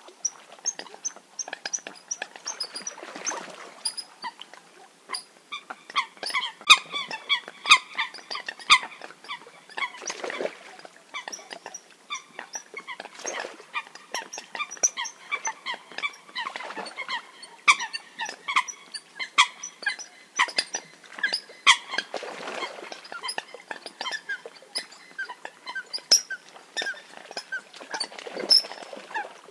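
Eurasian coots giving fight calls: a dense, overlapping run of short, sharp, high calls and clicks, with a broader rush of noise every few seconds.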